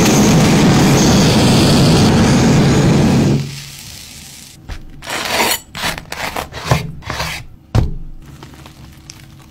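A kitchen blowtorch hissing steadily as it browns cheese slices, cutting off about three seconds in. Then a knife saws through crisp toasted bread with several short crunching, scraping strokes.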